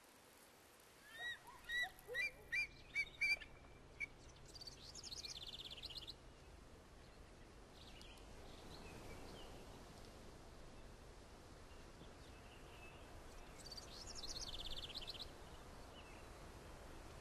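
Wild birds calling over a faint outdoor hush. There is a run of about seven short, sharp chirps, each a little louder, in the first few seconds. Later a fast, high trill comes twice.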